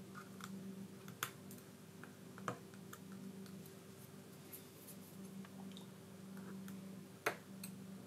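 Faint, scattered clicks and light scraping of metal tweezers picking old adhesive off a tablet's plastic frame, over a steady low hum. The sharpest click comes about seven seconds in.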